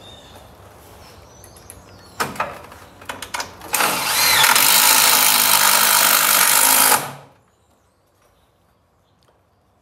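Cordless drill driving a screw into a metal garage door panel to fasten a hinge or bracket. It runs loud and steady for about three seconds, then stops. A few knocks and clicks just before are the hardware being set in place.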